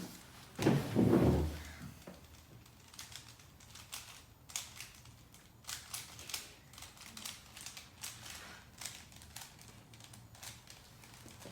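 3x3x3 Rubik's cube being turned quickly during a timed solve: the plastic layers click and clack in fast, irregular runs. A louder muffled rustle comes about a second in.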